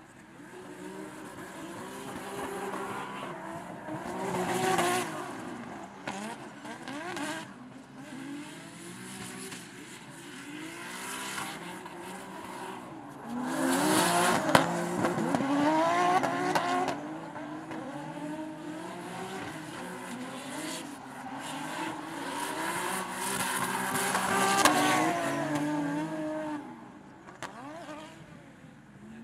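Drift cars sliding in tandem, their engines revving up and down on and off the throttle with tyres squealing. The sound swells three times as they pass, loudest about halfway through.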